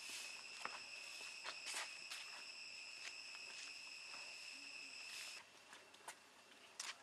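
Insects droning in a steady high tone that cuts off suddenly about five seconds in, with light footsteps on the path.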